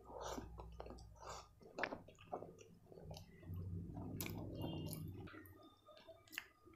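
Close-miked chewing of a mouthful of spicy noodles eaten by hand, with wet mouth clicks and smacks at an uneven pace. A low hum runs under the first five seconds or so.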